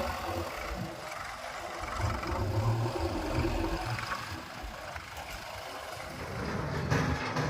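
Diesel engine of earth-moving machinery running, its level rising and falling as it works, with some rattle. A burst of clatter comes near the end.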